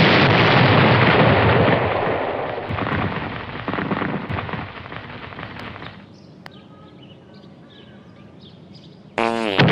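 Large explosion sound effect: a loud rumbling blast that dies away over about six seconds. Faint high chirps follow in the quiet. Near the end a sudden loud sound with a quickly rising pitch cuts in.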